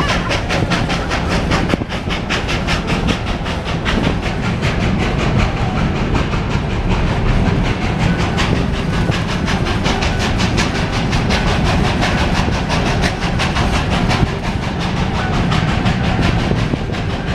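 Georgetown Loop Railroad narrow-gauge train hauled by steam locomotive No. 40, heard while riding: a steady loud rumble of the moving train with a fast, even beat running through it.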